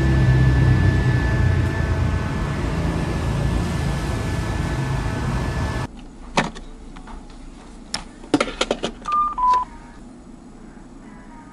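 A handheld mini electric fan running right at the microphone: a steady motor whine over blowing-air rumble, cut off abruptly about six seconds in. Then computer keyboard keys clicking in short runs, and two short beeps, the second lower, around nine seconds in.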